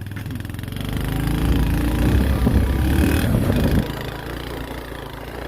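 A motor vehicle engine running, growing louder for a few seconds and then dropping back sharply to a steady idle about two thirds of the way in.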